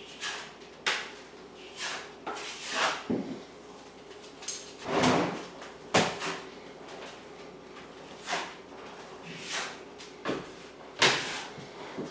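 Drywall blade dragging over a wall while skim coating, a dozen or so short, irregular scraping strokes of joint compound, with a faint steady hum underneath.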